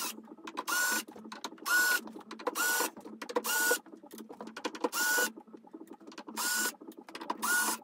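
Cordless drill-driver backing out fine-thread screws from a mixing console's bottom panel, in about eight short bursts, each about half a second, of a motor whine that quickly rises in pitch and then holds.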